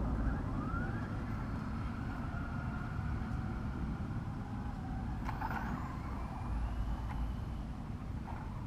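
Electric motor of a radio-controlled off-road truck whining, rising in pitch as it speeds up near the start and again about five seconds in, over a steady low rumble, with a sharp knock about five seconds in.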